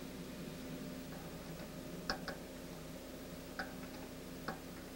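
Faint small clicks of a ground cable's metal clip being handled and fastened to the airframe, a few sharp ticks about two seconds in and again near the end, over a steady low hum.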